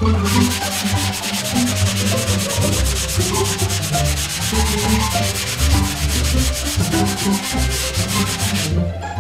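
Small hand sanding block rubbed back and forth over cured Bondo body filler on a car's quarter panel, feathering out a high spot; a steady rasping that breaks off briefly near the end.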